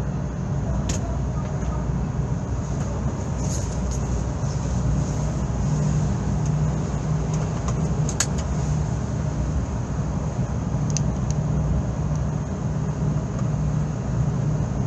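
Steady low engine drone with a constant hum, heard from inside a car on a ferry's car deck. A few short clicks stand out, about a second in, around eight seconds and around eleven seconds.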